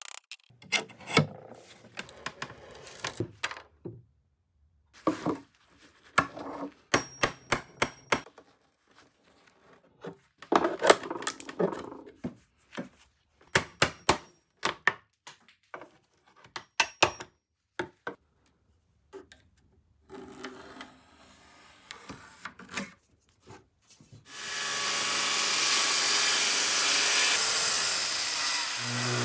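A steel scraper scraping old paint and shellac off wood: runs of sharp scrapes and clicks with short pauses between them. Near the end a power tool starts up and runs steadily and loudly.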